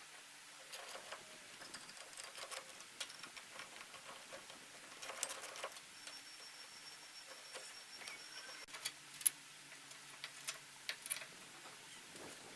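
Scattered light clicks and taps of metal parts and hand tools being handled, with a few sharper knocks late on.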